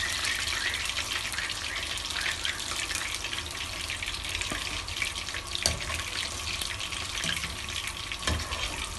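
Hot oil crackling and sizzling steadily as spice-coated fish pieces deep-fry in a wok, with a few sharp clicks in the second half.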